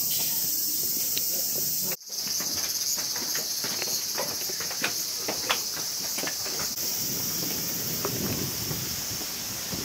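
Chorus of cicadas: a loud, steady, high-pitched drone that breaks off for an instant about two seconds in and then resumes. A scatter of light taps and clicks runs through the middle of it.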